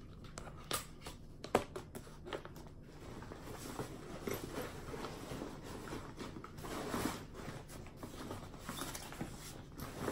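Faint rustling and handling noise with scattered light clicks, as a backpack is moved and handled.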